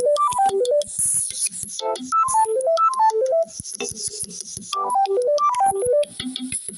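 Samsung Galaxy A14 ringtone playing: a bright synth-keyboard melody of quick stepping notes, the phrase looping about every two and a half seconds over a light electronic beat.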